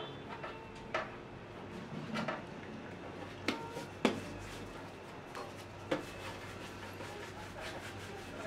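Balls of bread dough being rolled by hand and set down on a greased baking tray: about five light knocks and taps spread over several seconds, over a faint low hum.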